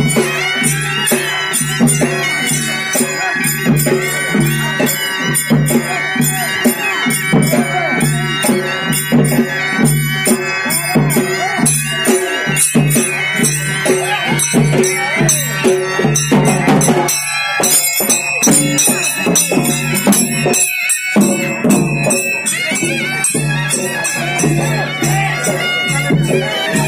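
Dhangar folk dance music played live: a reed-pipe melody over a steady low drone, with drums and jingling percussion keeping a driving beat.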